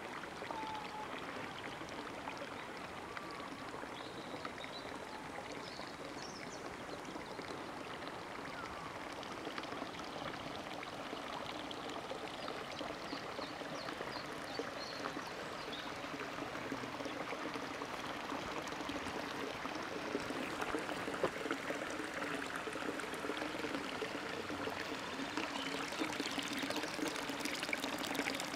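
Running water of a small stream, a steady rush that grows slightly louder in the last several seconds.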